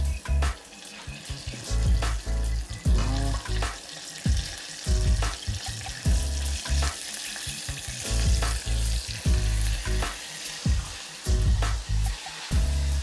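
Flour-coated tofu pieces deep-frying in a saucepan of hot oil, a steady sizzle, with irregular dull low thumps over it.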